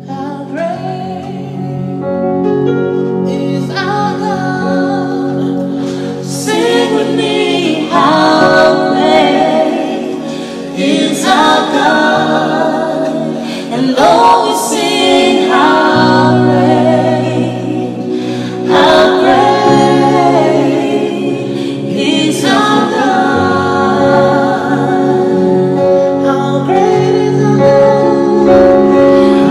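A small vocal group, two men and a woman, singing a gospel worship medley together in harmony, with long held notes.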